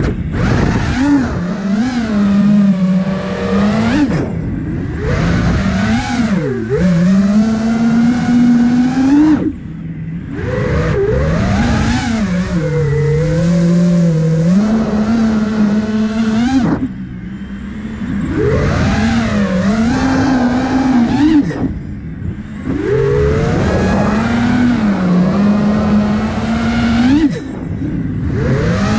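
iFlight Nazgul Evoque 5-inch FPV quadcopter's brushless motors and propellers whining in flight, the pitch sweeping up and down with throttle and briefly dropping away five times.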